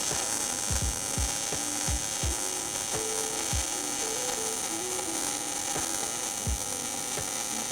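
MIG welding arc on 14-gauge steel: a steady high hiss and crackle from the welding gun, with irregular low thumps over it.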